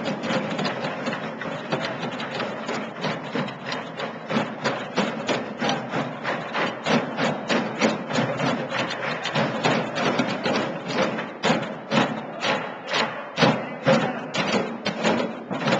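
A group drumming together on white plastic containers with sticks, a quick steady beat of hollow strikes. The strokes blend into a dense clatter at first, then fall into a sharper, more unified rhythm of about three to four beats a second.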